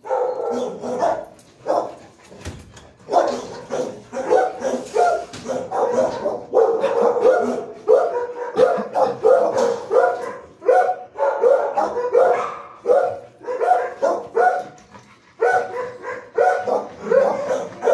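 Shelter dogs in kennel runs barking loudly and almost without a break, the barks overlapping one another.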